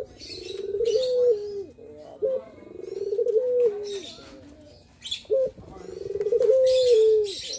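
Male ringneck (Barbary) dove giving its advertising coo three times: each a long rolling coo that climbs, holds, then steps down in pitch, led by a short sharp note. Higher bird chirps sound in between and over the coos.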